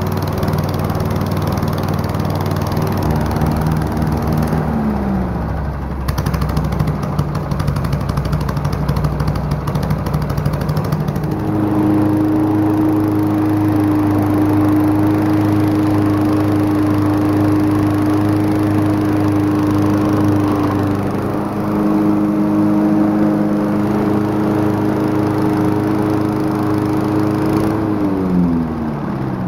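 Small gasoline push-mower engines running. Their pitch drops about five seconds in, a higher steady note joins about twelve seconds in, and near the end an engine winds down.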